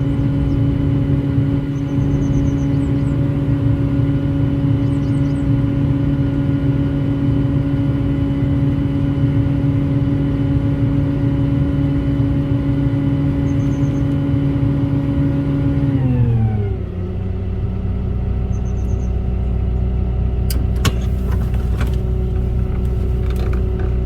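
Volvo excavator's diesel engine running steadily at high revs, then slowing to a lower speed about 16 seconds in. A few sharp knocks come near the end.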